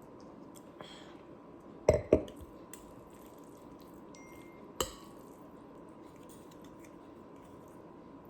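A few sharp knocks and clicks: two loud knocks close together about two seconds in and another near five seconds, with small clicks between, over a faint steady hum.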